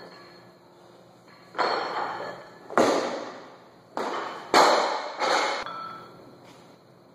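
Weightlifting barbells loaded with bumper plates thudding onto the gym floor: about five heavy thuds, each with a short ringing tail, the loudest a little past halfway as the bars are dropped from overhead and bounce.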